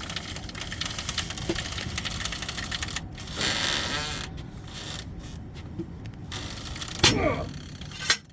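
Metal tools clicking and scraping on the grinder's stuck Lovejoy jaw coupling as it is pried at, with a rushing scrape about three seconds in and a loud clank about seven seconds in.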